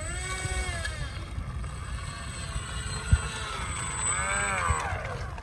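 Electric motor of a small RC model Su-30 jet revving up and back down twice as it taxis along asphalt, with a thin steady high whine, and a single short knock about three seconds in.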